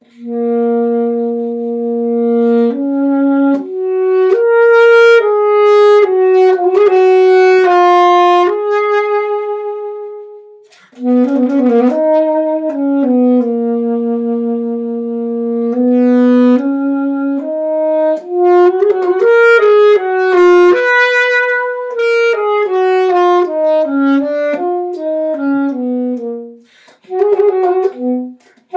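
Unaccompanied alto saxophone playing a slow, lyrical melody note by note. The first phrase tapers off about ten seconds in, and after a brief breath a second phrase begins.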